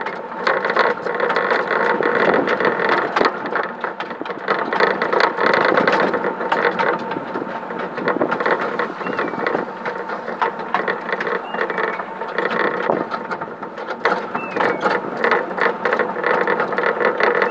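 Miniature-railway train running along narrow-gauge track: a steady mechanical rattle and clatter of wheels on rails, with a few brief high squeaks.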